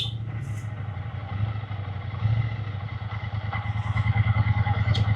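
Triumph Bonneville T120's parallel-twin engine running on the move, its exhaust pulsing low and steady, then growing louder as the revs pick up from about four seconds in.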